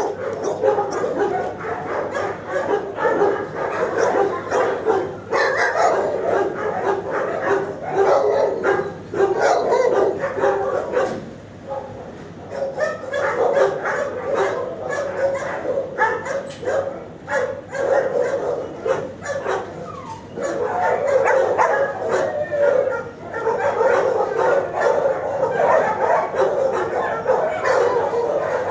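Dogs in shelter kennels barking almost without a break, many barks overlapping, easing briefly about twelve seconds in and again around twenty seconds.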